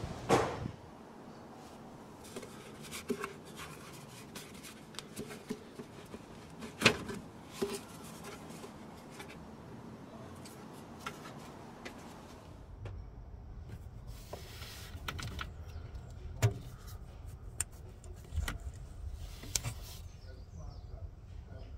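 Scattered clicks and knocks of plastic engine-bay parts being handled as the air intake duct is lifted out, with a low rumble in the second half.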